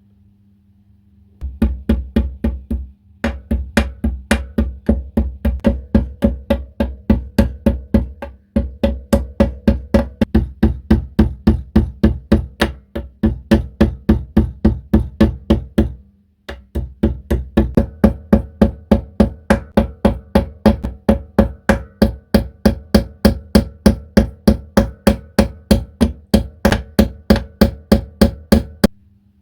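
Quick, steady hammer taps on the edge of a metal coin, about four a second, in runs broken by brief pauses.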